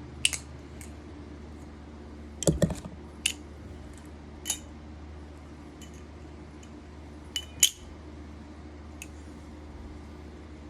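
Rebola balisong (butterfly knife) being flipped: irregular sharp metallic clicks and clacks as the handles swing around and strike, with a quick cluster about two and a half seconds in and the loudest pair a little past the middle.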